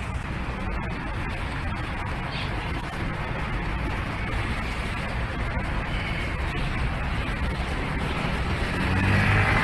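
Steady outdoor street background noise, with a vehicle engine growing louder near the end.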